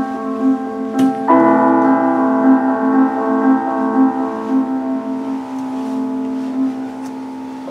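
Piano music: a steadily repeating figure pulsing about twice a second over held chords, which change about a second in.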